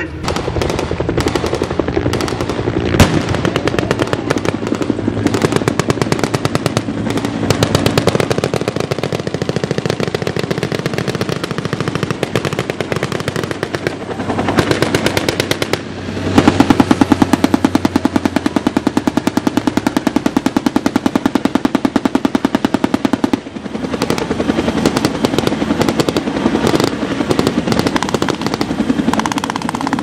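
Rapid automatic gunfire, blank rounds fired in long bursts throughout. In the second half a UH-1 helicopter passes low overhead, and a steadier, evenly spaced run of strokes sounds for about seven seconds.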